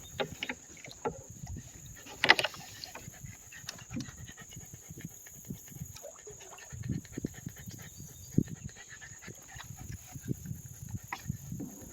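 Small dog panting and moving about in a canoe, with irregular knocks and bumps against the hull, the sharpest about two seconds in.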